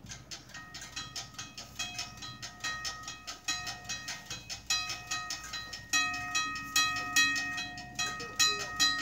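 Railroad crossing signal bell ringing rapidly, about five strikes a second. It starts suddenly and rings louder in the second half.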